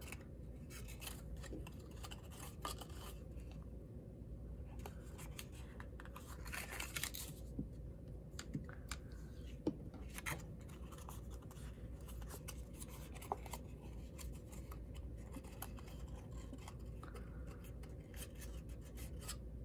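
Cardstock paper being folded and handled by hand: scattered rustles, crinkles and small scratchy clicks, quiet throughout.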